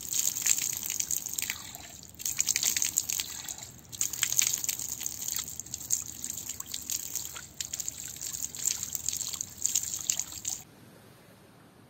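Water running from a plastic wall tap and splashing as hands and face are rinsed under it, as in wudu ablution. It is an uneven, spattering splash that stops abruptly near the end.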